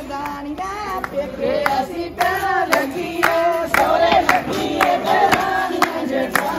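A group of women singing together while clapping their hands in time, the claps coming steadily about twice a second.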